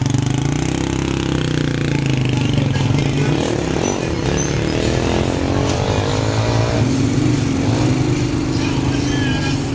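Motor vehicle engines running in slow street traffic. About three seconds in, one engine rises in pitch for several seconds as it speeds up, then drops back to a steady low running note.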